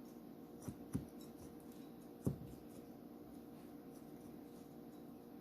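A knife cutting into a lemon, with three short knocks on the cutting surface, the last and loudest about two seconds in, over a faint steady hum.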